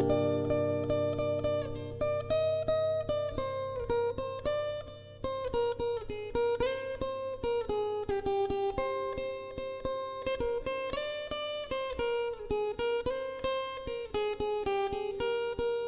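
Acoustic guitar played solo: a melody of quick single picked notes over a steady picking rhythm, with no voice.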